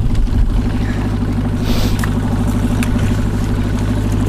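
Evinrude outboard motor running steadily at trolling speed: an even, low, pulsing drone. There is a brief hiss about two seconds in.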